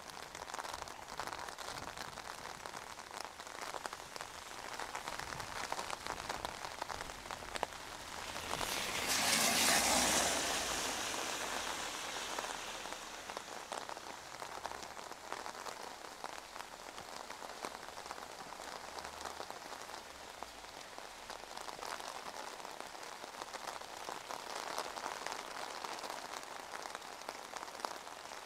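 Steady rain falling on wet pavement and puddles. About nine seconds in, the hiss of a vehicle's tyres on the wet road swells up and fades away over a few seconds.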